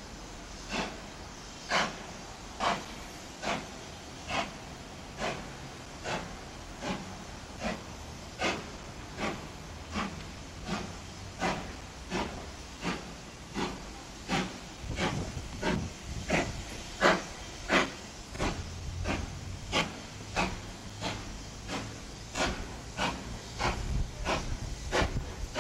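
Steam locomotive, a BR 'Britannia' class Pacific, pulling away slowly: sharp exhaust chuffs a little more than once a second, quickening slightly, over a steady hiss of steam. A low rumble grows under the beats in the second half as the engine comes nearer.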